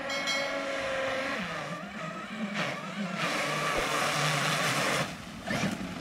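Traxxas X-Maxx electric RC monster truck's brushless motor whining, its pitch rising and falling with the throttle and dropping about a second and a half in, as the truck ploughs through muddy water. A loud rush of spray and splashing runs for about two seconds past the middle.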